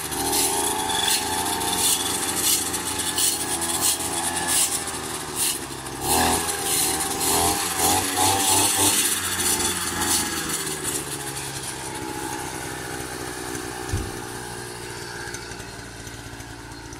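Motorised scythe (brush cutter) running at high revs while shredding dried grass into chaff, with irregular crackling hits from the cutting. The engine note wavers and eases off over the last several seconds.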